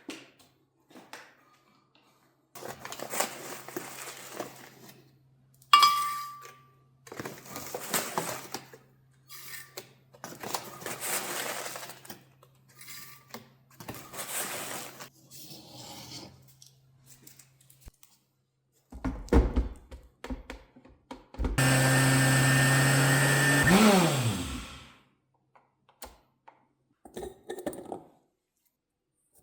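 A small electric motor, such as a kitchen blender's, runs for about three seconds and then winds down, its pitch dropping as it stops. Before it come several stretches of rustling and handling noise with a few knocks.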